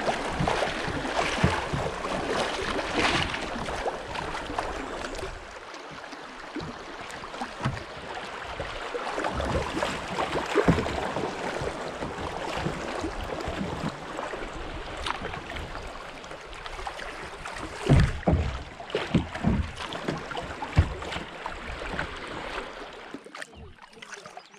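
Fast, muddy river water rushing and splashing in riffles around a kayak, with paddle splashes. There are several sharp knocks about three-quarters of the way in, and the rush dies down near the end as the water goes calm.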